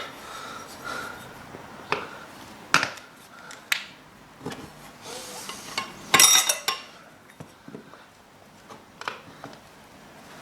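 Metal tools clinking and scraping against a motorcycle wheel during a tyre change: several separate sharp metallic knocks, the loudest about six seconds in with a brief ring after it.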